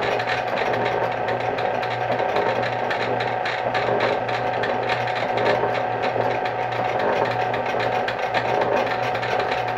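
Rhodes metal shaper running steadily: an even motor and drive hum with a fast, busy mechanical clatter.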